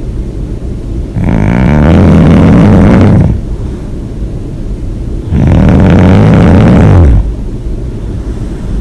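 A person snoring loudly: two long snores of about two seconds each, some four seconds apart, with quieter breathing between them.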